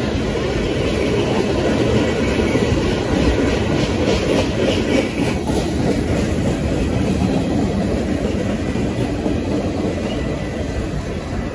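Train rolling past, a steady heavy rumble of wheels on rail with a clickety-clack of rail joints, easing off slightly near the end.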